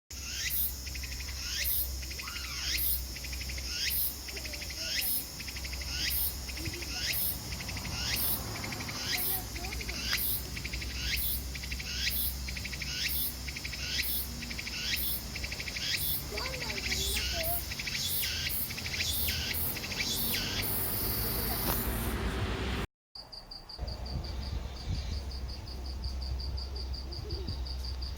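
Tsukutsukuboushi cicada (Meimuna opalifera) singing its repeated phrase over and over, roughly one falling sweep every two-thirds of a second, closing in a longer steady buzz. After a brief cut to silence, a pine cricket (matsumushi) trills with rapid, evenly pulsed high chirps.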